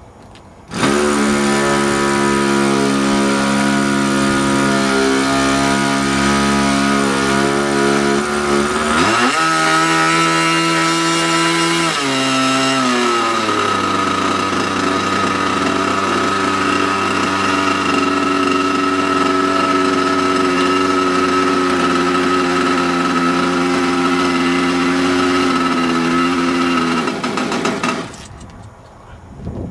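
Small engine of a radio-controlled Cessna 182 model airplane running cold, just after starting. It runs steadily, climbs in pitch as it is revved about nine seconds in, drops back, settles into a lower steady idle and cuts off shortly before the end.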